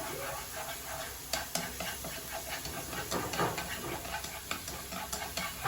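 Garlic sizzling in hot oil in a pan while it is stirred, with repeated clicks and scrapes of the utensil against the pan.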